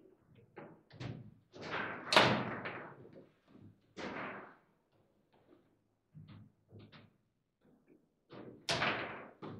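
Foosball table in play: a series of sharp, irregular knocks as the ball is struck by the plastic figures and cracks off the table walls and rods, the loudest about two seconds in and another loud run near the end.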